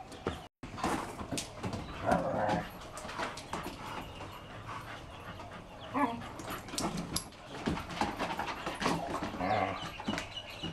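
A group of dogs playing rough: short yips and whines mixed with many quick clicks and scuffles of paws and claws on wooden decking.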